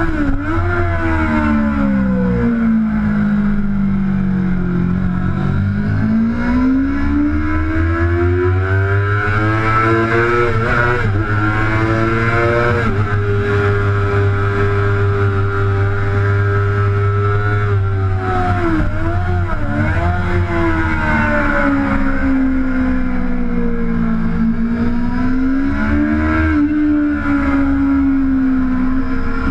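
Sport motorcycle engine heard from the bike itself at track speed, its pitch climbing through the revs and dropping back with gear changes and braking, held on one steady high note for several seconds midway, with wind rush.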